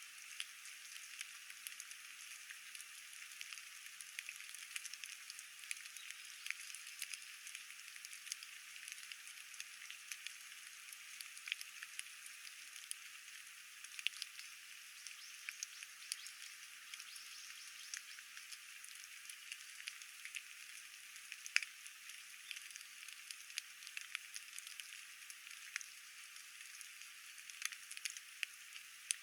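Steady rainfall: a constant thin hiss with many individual raindrops ticking sharply and irregularly throughout.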